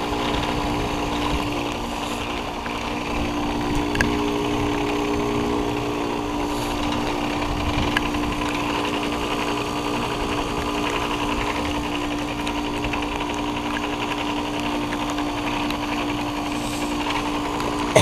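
2021 Carrier Comfort heat pump outdoor unit running steadily in its defrost cycle, melting ice off the coil: a constant machine hum with several held tones, and a couple of faint ticks.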